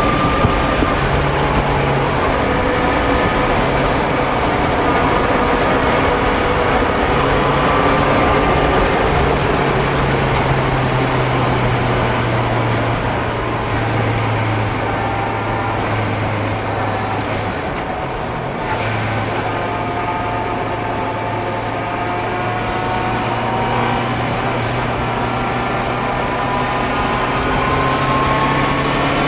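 Honda CB650F's inline-four engine running under way at highway speed, with wind and road rush on the microphone. The engine note holds fairly steady, drops out briefly a little past halfway, then climbs steadily in pitch as the bike speeds up toward the end.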